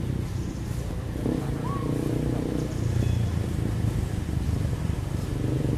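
Steady low engine rumble of a motor vehicle running, with a brief faint high chirp about two seconds in.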